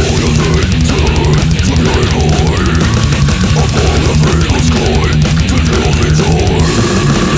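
Brutal death metal recording: heavily distorted guitars, bass and fast drumming played at full tilt, with sliding, bending lines cutting through the dense mix.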